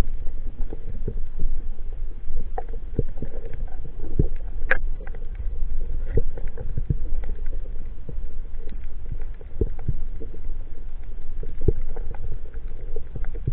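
Underwater sound picked up through a waterproof action-camera housing: a steady muffled low rumble with scattered sharp clicks throughout.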